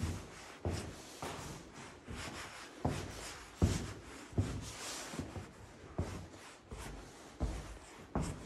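Footsteps on a floor strewn with plaster debris, about one step every three-quarters of a second, over rubbing and rustling.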